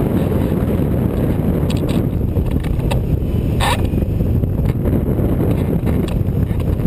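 Airflow buffeting the microphone of a camera mounted on a rigid-wing hang glider in flight: a loud, steady low rush of wind noise, with a few light clicks and one brief sharp crackle about three and a half seconds in.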